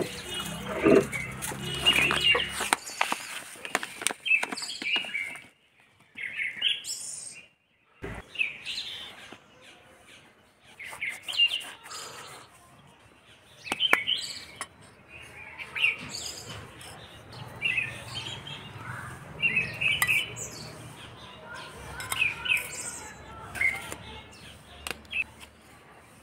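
Small birds chirping in short, repeated notes, on and off, with a faint low hum underneath. The first few seconds hold a denser stretch of mixed noise.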